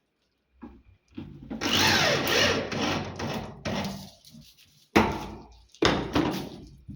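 Power drill-driver running in bursts, driving screws into a wooden door to fix a hinge: one long run of about three seconds, then two shorter bursts that start sharply.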